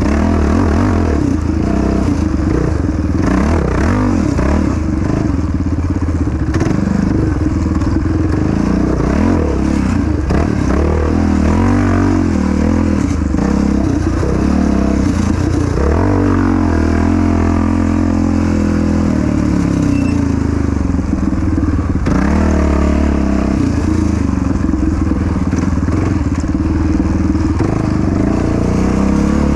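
Yamaha Raptor 700 quad's single-cylinder four-stroke engine running hard under race riding, its pitch rising and falling as the throttle opens and closes, held steadier for a few seconds about midway.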